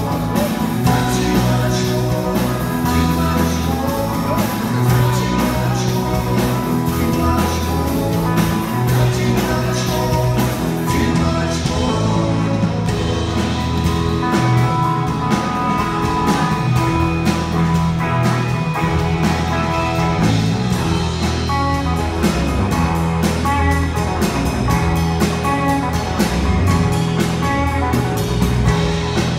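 Live rock band playing at full volume: electric guitar, bass and a drum kit, with steady cymbal strokes and a bass line that changes note every second or so.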